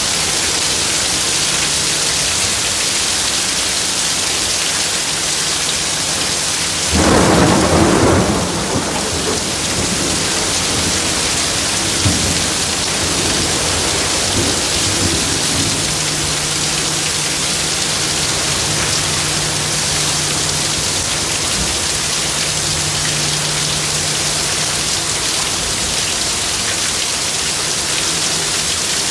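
Heavy rain pouring steadily onto trees, lawns and pavement in a thunderstorm. About seven seconds in, a sudden loud clap of thunder breaks out and rumbles on for several seconds, with a smaller crack partway through the rumble.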